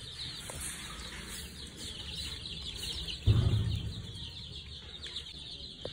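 Many small birds chirping together, a steady scatter of short, high, falling chirps. About three seconds in there is a brief dull rumble.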